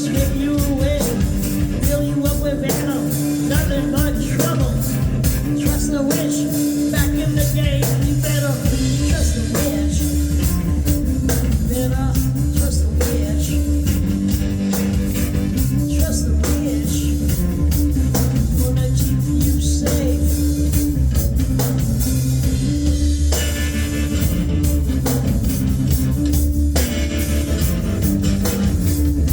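Live rock band playing: electric guitar, bass and drums, with a singing voice in the first part. A heavier bass line comes in about nine seconds in.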